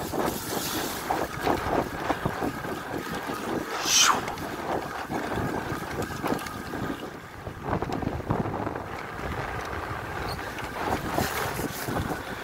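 Electric mountain bike ridden fast over a wet gravel and mud path: tyres crunching and splashing, the bike rattling over bumps, and wind buffeting the microphone. About four seconds in there is one brief falling squeal.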